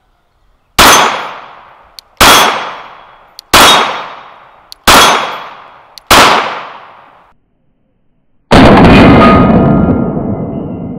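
Five 9mm pistol shots from a Glock 19 Gen 5, fired singly about a second and a half apart, each ringing out for about a second. About two and a half seconds after the last, a longer loud blast sets in and fades slowly over more than two seconds.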